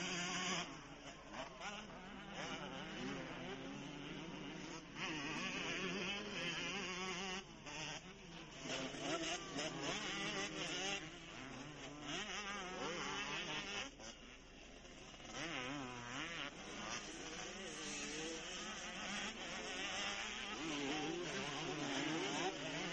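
Motocross dirt bike engines buzzing and revving on the track, their high whine rising and falling in pitch with the throttle. The sound changes abruptly several times.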